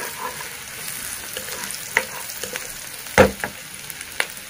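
Chopped ginger, garlic and green chillies sizzling in hot oil in a non-stick wok as a spatula stirs them, with a few clicks and one louder sharp knock about three seconds in.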